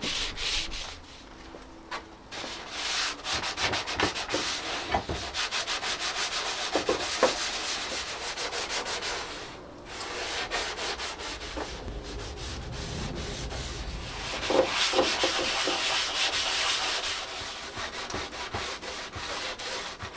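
Hand sanding dried body filler on a car's front bumper with wet-and-dry abrasive paper: quick back-and-forth rubbing strokes, with short pauses about a second in and about halfway through.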